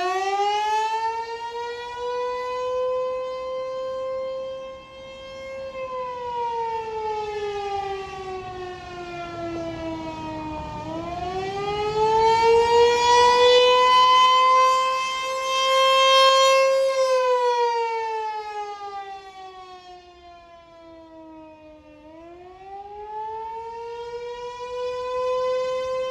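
ASC T128 tornado warning siren sounding a wail during a test. It gives one tone that slowly rises in pitch for about six seconds, falls for about five, and repeats. Its loudness swells and fades, dipping lowest near the bottom of the second fall.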